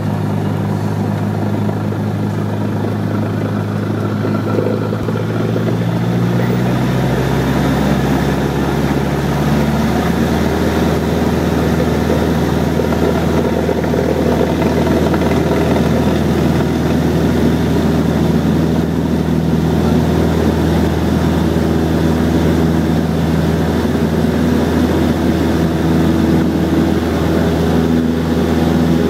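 Cessna 172SP's four-cylinder Lycoming engine and propeller heard from inside the cabin as the plane taxis onto the runway and begins its take-off roll. The engine note shifts between about five and ten seconds in, then holds steady and a little louder.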